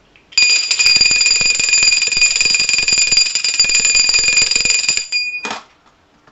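Small brass puja hand bell (ghanti) rung rapidly and continuously for about five seconds, giving a bright, steady jangling ring that stops abruptly.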